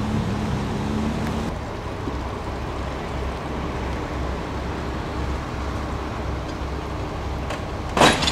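An engine running steadily with a low, pulsing rumble. A hum drops away about a second and a half in, and a sudden loud clunk comes near the end.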